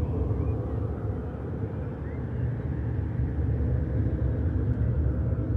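Steady low rumble of vehicle traffic, even and unbroken.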